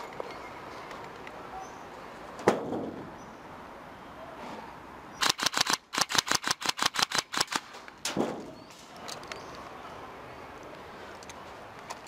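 Airsoft gun firing: a single sharp shot, then a quick string of shots about five seconds in, a short group and, after a brief break, about a dozen more at roughly seven a second.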